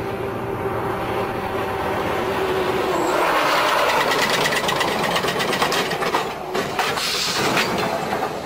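Armored military truck driving fast with a steady engine whine, then a loud rough rushing noise from about three seconds in as its tyres skid and smoke on the pavement, with a couple of sharp knocks near the end.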